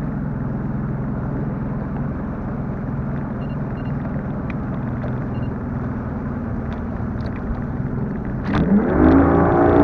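Boat's outboard motor running steadily at speed, with wind and water noise. About eight and a half seconds in, a louder rising tone sweeps in over it.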